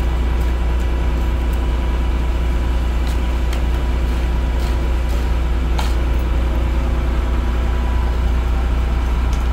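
An engine idling, a loud steady low drone, with a few faint clicks between about three and six seconds in.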